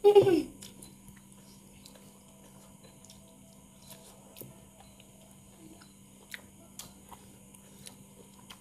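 A short voiced mouth sound at the very start, then quiet chewing of fried tofu soaked in sauce, with scattered small wet clicks and smacks of the mouth.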